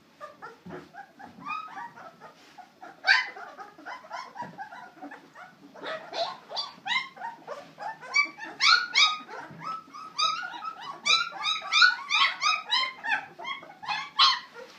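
A litter of 17-day-old puppies squeaking and whining: many short, high calls overlapping, growing busier about halfway through.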